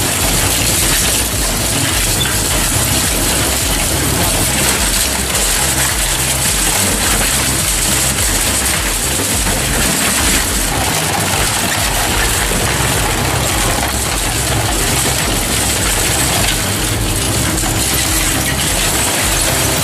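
Industrial shredder grinding scrap: a steady machine hum under continuous crunching and clattering of material being torn apart.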